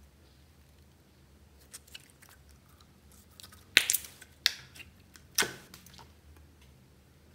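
Glossy metallic slime handled over a glass dish: quiet stretching at first, then about four sharp wet pops and squelches close together in the second half as it is pressed down and set into the dish.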